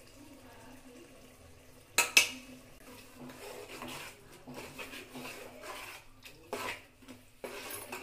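Steel spatula stirring thick curry gravy in a steel pot: a sharp clank against the pot about two seconds in, then irregular scraping and knocks on the metal as the gravy is stirred.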